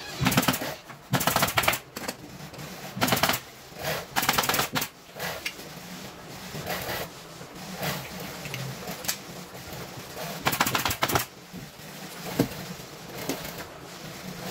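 Pneumatic upholstery staple guns firing in quick runs of rapid clicks, several runs in the first five seconds and another about ten and a half seconds in.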